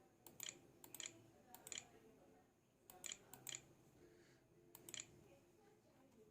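Faint, scattered clicks of laptop keys, mostly in quick pairs, about half a dozen groups spread over a few seconds, over low room noise.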